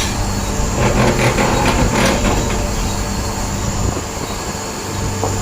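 Electric wire stripping machine running with a steady hum while two-core service wire is fed through it. There is a stretch of rattling and clattering from about one to two and a half seconds in.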